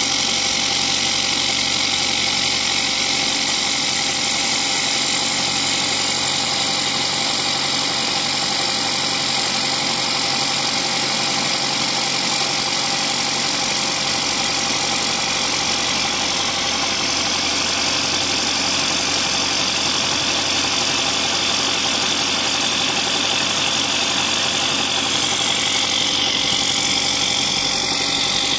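Milling machine face-milling an aluminium bar under coolant spray: a steady hiss of cutting over the even running of the spindle. The hiss gets a little louder and brighter near the end.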